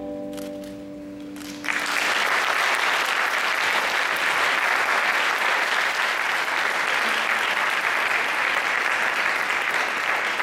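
The music's last held notes end about a second and a half in, and an audience starts applauding suddenly, steady and loud, clapping on through the rest.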